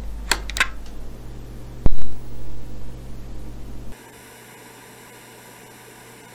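Static noise: a low hum with a few crackles, a loud sharp knock about two seconds in, then a steady faint hiss with a thin hum from about four seconds in.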